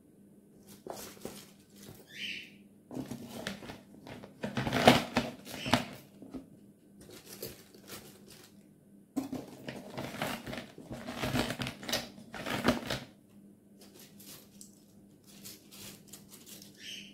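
Handfuls of chopped raw cabbage are dropped and pressed into a plastic jar, with leaves crackling and rustling and knocking against the plastic. It comes in two busy spells of a few seconds each, with a quieter gap between.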